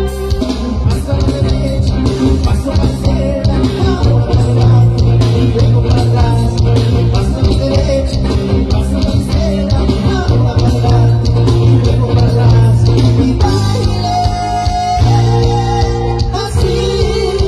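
A band playing an upbeat dance song: steady beat with heavy bass and guitar, and a voice singing at times.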